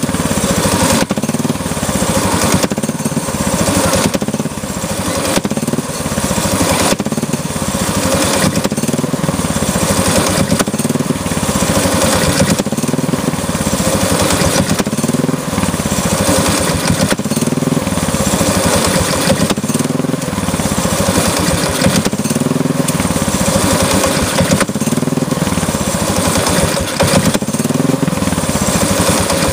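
Small go-kart engine running on choke, its speed rising and falling in a regular cycle about every two seconds as the governor keeps kicking in. It will only keep running on choke, which the owner suspects is a carburettor problem.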